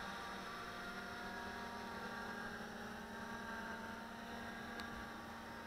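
Electric quadcopter in a Millennium Falcon shell, its propellers humming steadily in several tones and slowly growing fainter as it flies off.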